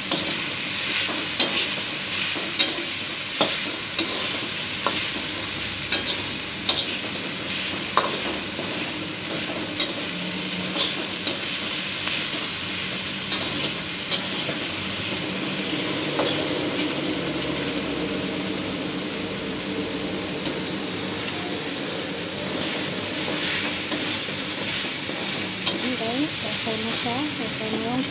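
Chicken, carrot strips, onion and garlic sizzling in oil in a steel wok as they are stir-fried, with a metal spatula scraping and clinking against the pan at irregular moments.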